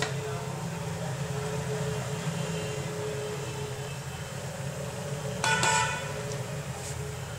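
A steady low hum, broken about five and a half seconds in by a short, loud horn-like toot lasting about half a second.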